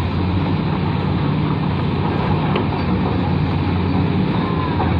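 Heavy diesel engines of Kobelco excavators running steadily under work, a continuous low drone.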